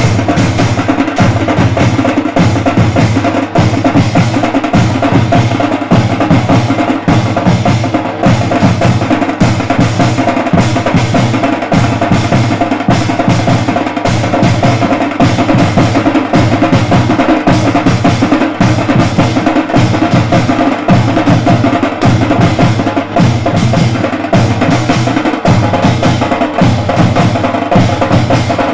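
A drum band playing a fast, dense rhythm of constant, unbroken drumbeats.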